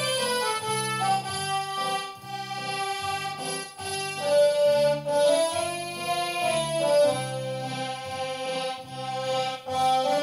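Roland FR-8x digital accordion playing a song: a sustained melody line over a steady, rhythmic bass-and-chord accompaniment from the left-hand buttons.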